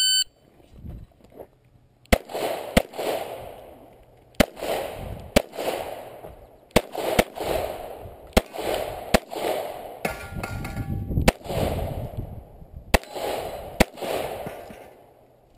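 A shot timer beeps once to start the stage. A Glock pistol then fires about a dozen shots, some in quick pairs and some spaced out, each with an echo.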